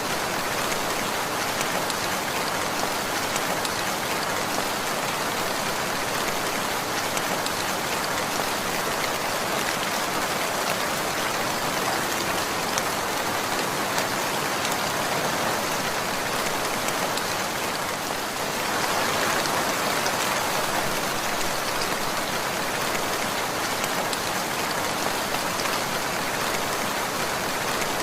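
Steady rainfall, a dense, even patter of raindrops that swells slightly a little past halfway.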